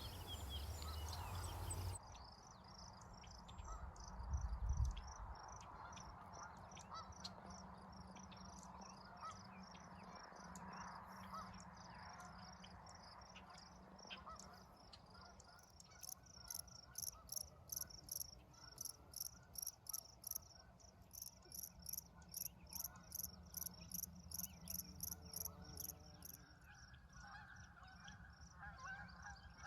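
Quiet outdoor ambience with a faint steady low hum. From about halfway through, a very high-pitched chirp repeats regularly, about two to three times a second. There is a brief low thump a few seconds in.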